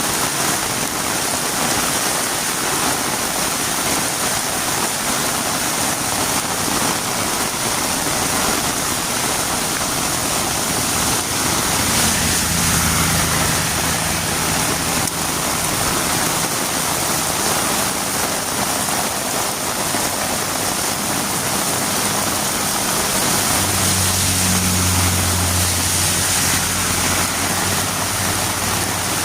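Heavy rain falling steadily, a dense even hiss. A low engine hum joins about twelve seconds in and grows stronger from about twenty-four seconds in.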